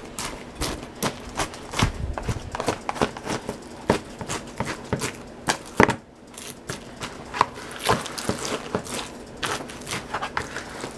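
Silicone spatula stirring a sticky mix of corn flakes and peanut butter syrup in a plastic bowl: irregular crackling clicks and scrapes, several a second, as the coated flakes are turned over.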